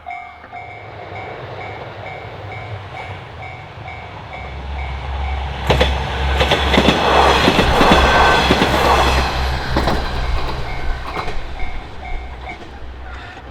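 Japanese level-crossing warning bell ringing in an even two-tone pattern, about two strikes a second. A JR Hachiko Line train passes over the crossing about halfway through, with rumble and rail-joint clicks loud enough to cover the bell, and the bell is heard again as the train goes.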